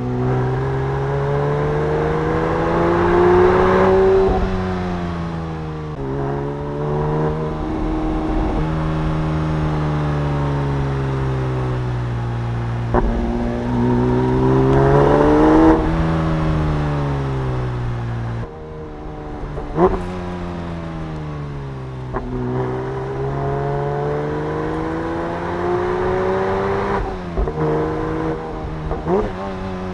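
Porsche 911 GT3 S/C's 4.0-litre six-cylinder engine under way, its note climbing in pitch as it pulls through the revs and falling back several times at gear changes or when easing off. A few brief sharp clicks are heard along the way.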